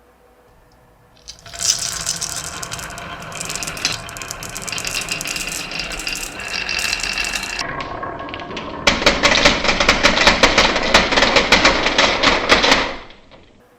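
Marbles rolling and rattling along a marble run track, starting about a second and a half in. For the last few seconds a loud, dense run of rapid clicks follows as the marbles clatter down, and it stops abruptly just before the end.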